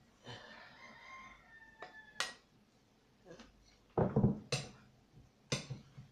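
A faint, drawn-out call in the first two seconds, then a series of knocks and clunks from a blue glass mixing bowl being set down on a wooden shelf. The heaviest knocks come about four seconds in.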